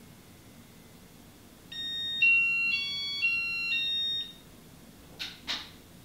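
An electronic beep melody of about five steady notes over roughly two and a half seconds, typical of a Casablanca Inteli•Touch fan control signalling, followed by two short clicks. Behind it is the faint steady hiss of the spinning ceiling fan.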